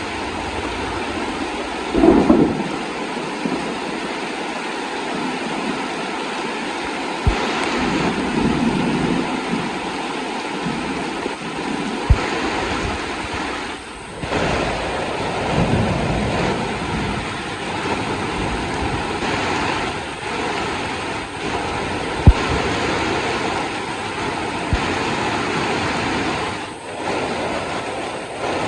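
Heavy rain falling steadily, with low thunder rumbles swelling about two seconds in and twice more in the first half. A few sharp knocks stand out, the loudest about three-quarters of the way through.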